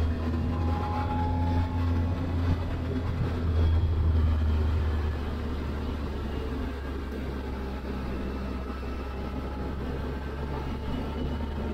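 Triumph Tiger 1200 Explorer's three-cylinder engine running on the move, with road and wind noise. It is louder for about the first five seconds, then eases to a steadier, lower level.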